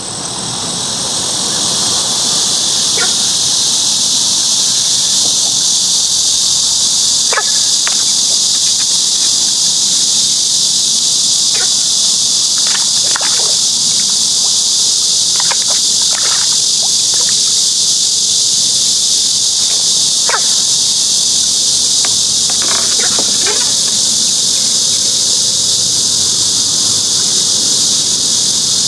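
A dense, steady, high-pitched chorus of insects shrilling without a break. A few faint, short ticks are scattered through it.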